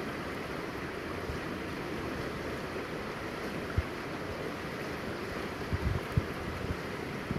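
Steady rush of river water around a kayak, with wind on the microphone and a few dull low thumps, one about four seconds in and a cluster near six seconds.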